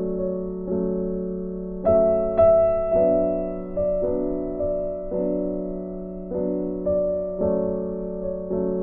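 Slow, gentle keyboard music: soft chords struck about once a second, each fading away before the next.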